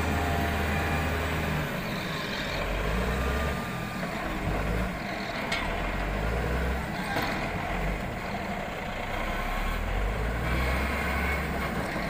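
Heavy diesel engine of a Caterpillar wheel loader working as it lifts a load of logs off a logging truck, its low running note rising and falling with the load. A couple of sharp knocks sound in the middle.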